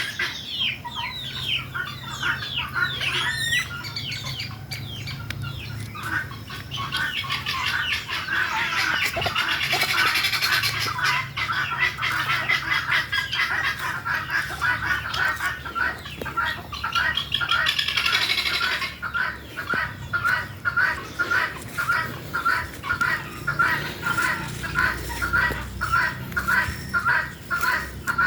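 Helmeted guinea fowl calling: a dense chorus of harsh, repeated cries, settling in the second half into an even run of about two calls a second.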